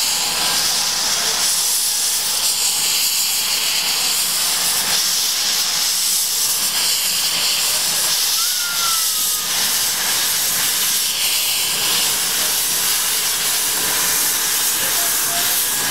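Loud, steady hiss of steam from a small Abt rack steam tank locomotive blowing off through its open cylinder drain cocks as it moves slowly off.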